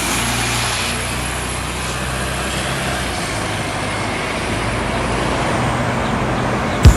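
Steady low vehicle engine rumble with a hiss over it, then a sharp loud knock just before the end.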